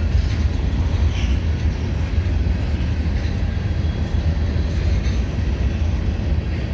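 Freight train cars rolling past, a steady low rumble of steel wheels on the rails, with a brief faint squeal about a second in.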